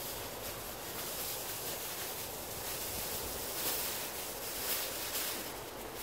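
A sheet of aluminium foil crinkling as it is spread over a large cooking pot, with a few sharper crackles in the second half, over a steady rushing noise of wind on the microphone.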